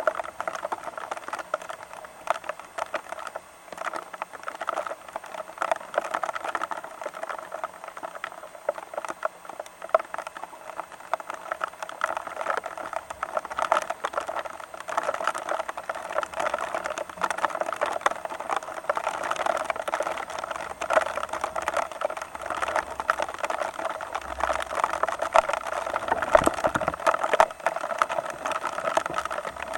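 Rain pattering steadily, a dense run of small drops striking a nearby surface.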